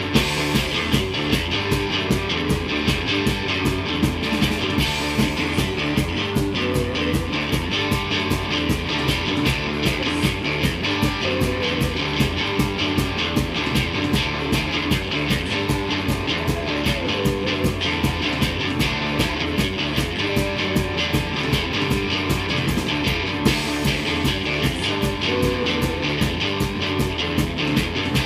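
Live rock band playing loud: electric guitar, bass guitar and drums, with a steady, fast drum beat of about three hits a second.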